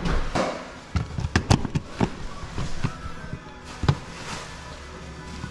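A string of sharp clicks and knocks from handling tools and small parts: about five in quick succession between one and two seconds in, and one more near four seconds.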